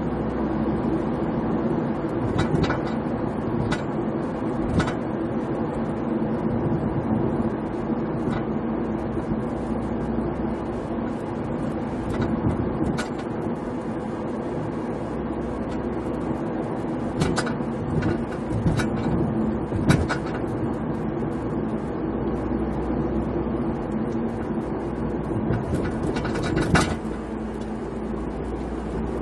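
VW Scirocco 1.4 TSI driving, its steady engine and road noise broken by irregular sharp clunks and rattles from the right rear axle area as it goes over small bumps: something loose rattling, which the owner has not yet traced, having ruled out the tailgate and exhaust.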